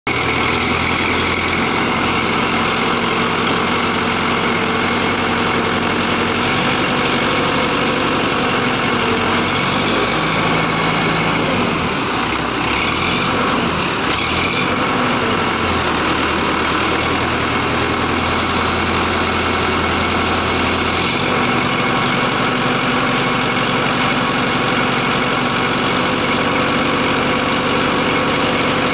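Diesel engine of an ACE hydra crane running steadily while its hydraulic boom is raised and telescoped out; the engine note shifts a few times partway through.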